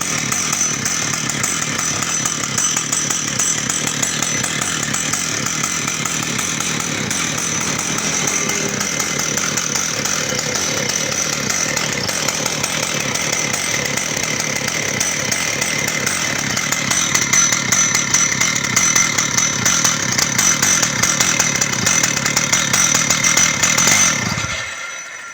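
Stihl MS 880, a large two-stroke chainsaw, running steadily and louder over the last several seconds, then stopping shortly before the end.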